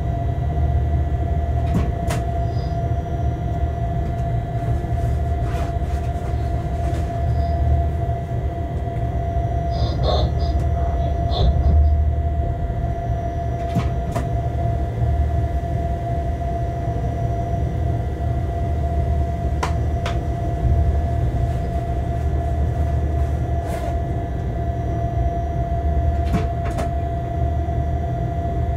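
Shunting locomotive running along the track, heard from inside its cab: a steady low rumble with a constant whine over it. Scattered sharp clicks and knocks come and go.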